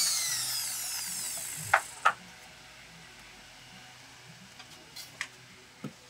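Small electric drill with a fine bit spinning down after drilling a coconut shell, its whine falling in pitch and fading over about two seconds. Then two sharp knocks and a few lighter clicks as the carved coconut shells are handled.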